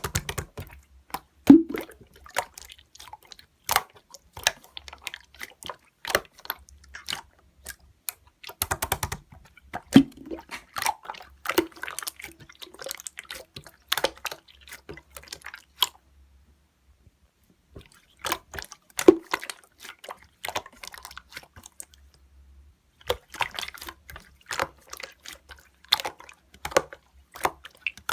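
Slime being squeezed and poked by hand, making irregular wet clicks and small pops, with a pause of about two seconds a little past the middle.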